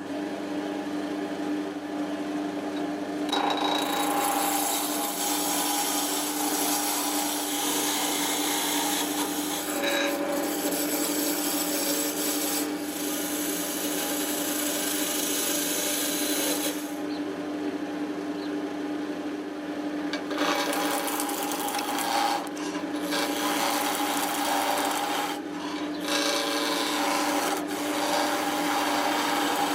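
A power tool's motor running steadily while a tool scrapes or abrades the workpiece in long passes, with short breaks between them.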